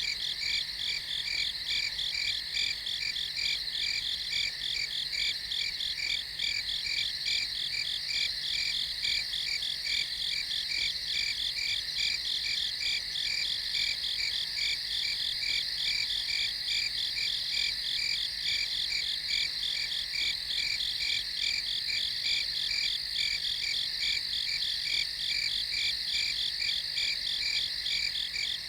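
Crickets and other night insects chirping in a dense, steady chorus of overlapping high-pitched trills pulsing several times a second, with no breaks.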